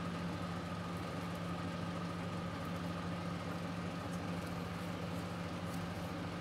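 A steady low mechanical hum with a faint higher tone above it, holding even throughout, with a few faint ticks.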